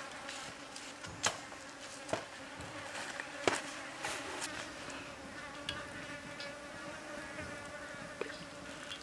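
Insects buzzing steadily in a fly- or bee-like hum, with a few sharp clicks in the first few seconds.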